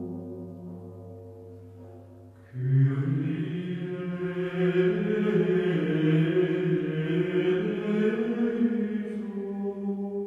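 Chanted vocal music, solemn and droning. A low held tone fades over the first couple of seconds, then the chanting voices come in suddenly about two and a half seconds in and hold long, slowly moving notes.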